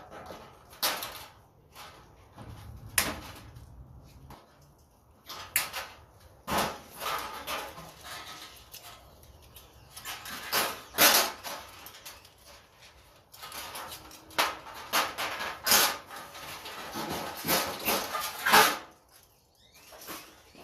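Sheet-metal light fixtures being taken apart: irregular clanks, knocks and rattles of metal parts, with scraping and handling noise between them.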